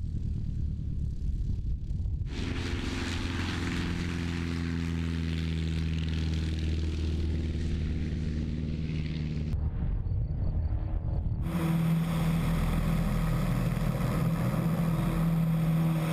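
Piston engine of a vintage propeller airplane running steadily, with a low hum and propeller noise. The sound changes abruptly a few times, about 2, 10 and 11 seconds in, as the engine is heard from different places.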